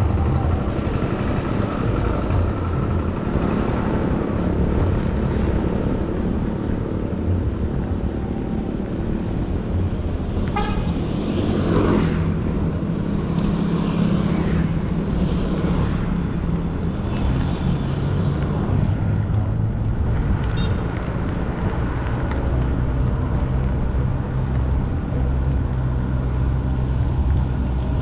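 Steady rumble of tyres on a road with passing traffic, and a short vehicle horn toot about ten and a half seconds in.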